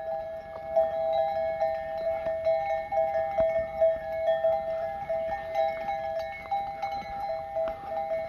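Bells on a walking flock of sheep and goats ringing almost without pause, two main pitches sounding over and over, with small clanks mixed in.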